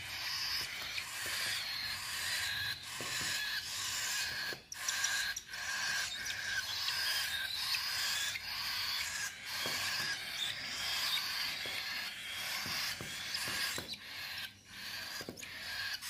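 Baby cockatiel chick begging for food while being hand-fed: a continuous raspy, wheezy chatter with a few brief breaks.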